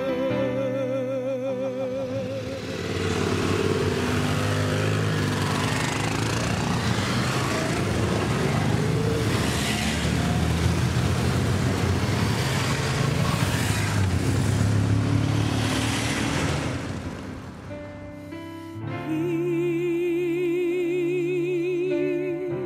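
A song with a singer's held, wavering note, cut off after about two seconds by the live sound of a group of motorcycles riding in city traffic: engines running under heavy road and wind noise for about fifteen seconds. The song comes back near the end.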